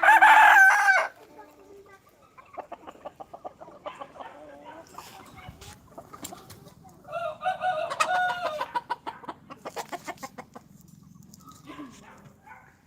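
Gavran (desi) chickens: a rooster crows loudly at the start and again about seven seconds in, with hens clucking in between.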